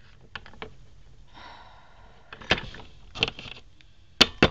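Hard plastic Littlest Pet Shop figurines clicking and tapping as they are handled and set down on a wooden tabletop: scattered sharp clicks, with a quick run of louder clicks near the end.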